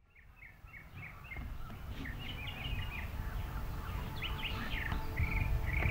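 Songbirds chirping in short, repeated phrases over a low rumble of outdoor background noise, fading in from silence at the start.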